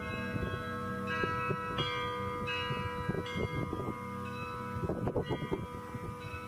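Russian Orthodox monastery bells ringing. Bells are struck one after another about every half second to a second, each leaving a long ringing tone that overlaps the next, over a low rumbling noise.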